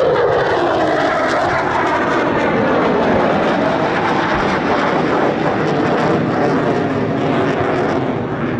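An F/A-18D Hornet fighter's twin jet engines running loud in a close display pass. A tone drops in pitch as it goes by, then comes a steady jet noise with wavering tones.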